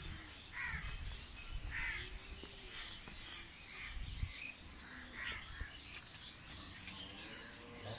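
Crows cawing repeatedly in short separate calls, with some smaller birds chirping.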